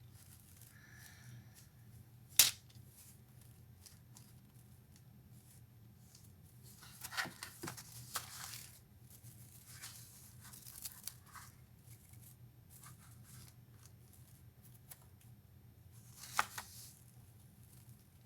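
Hands handling craft materials: one sharp click about two seconds in, crinkling and rustling for a second or two around the middle, scattered light ticks, and another brief rustle near the end.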